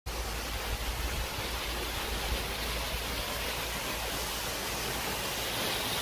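A waterfall rushing steadily, with an uneven low rumble underneath.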